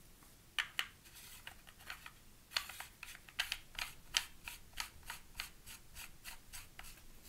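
Aluminium lightsaber pommel being screwed onto the hilt by hand: a couple of metal clicks, then from about two and a half seconds in a steady run of light ticks, about four a second, as it is turned on its thread.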